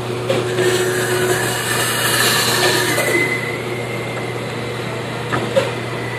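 Band saw running without a load, a steady motor hum with the blade whirring. Near the end come a couple of light knocks as the wooden workpiece is handled on the saw table.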